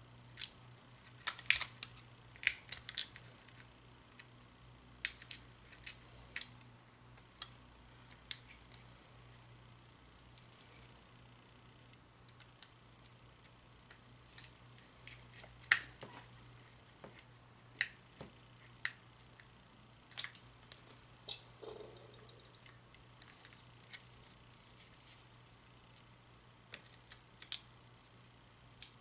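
Irregular small clicks and light taps of a cordless phone's plastic housing parts and screws being handled and fitted together during reassembly, over a low steady hum.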